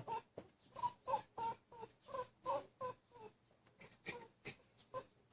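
A dog whining in a string of short, high whimpers, about two or three a second at uneven spacing.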